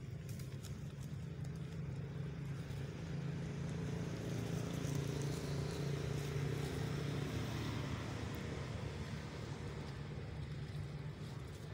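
An engine running with a steady low hum, growing louder through the middle and easing off near the end, as of a motor vehicle passing or idling nearby.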